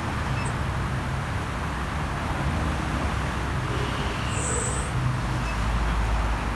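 Steady low rumble of a motor vehicle, with a brief high hiss about four and a half seconds in.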